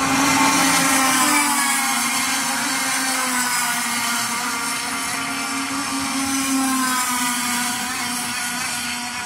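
Racing go-kart engines running at high revs along the street course, a steady high-pitched engine whine whose pitch sags and climbs again as karts pass, loudest about half a second in and swelling again near the end.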